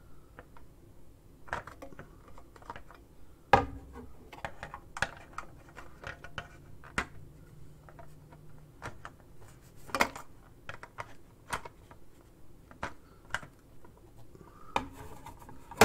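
Hard plastic parts of a scale figure's display base and clear support stand tapping and clicking against each other as they are handled and fitted, in irregular clicks with a louder knock about three and a half seconds in.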